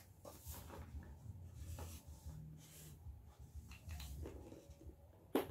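Felt-tip marker drawing on paper: faint scratchy strokes, with a sharp click near the end.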